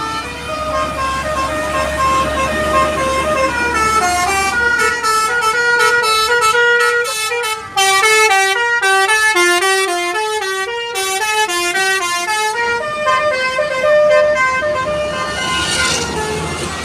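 Telolet basuri, the multi-note melodic horn of an Indonesian tour bus, playing a fast tune in stepped notes, several notes at once, busiest in the middle and thinning near the end. A low steady hum runs underneath.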